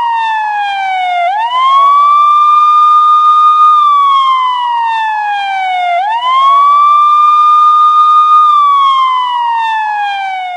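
Police siren wailing. The pitch sweeps quickly up, holds high for about two seconds, then slides slowly down, in a cycle of about five seconds.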